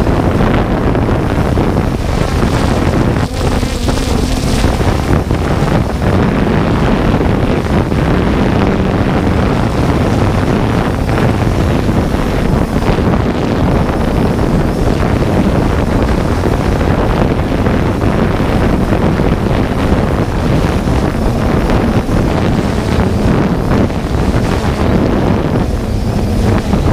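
Steady wind rush on the microphone of a GoPro carried aloft by a 3DR Solo quadcopter, mixed with the constant hum of the drone's propellers and motors.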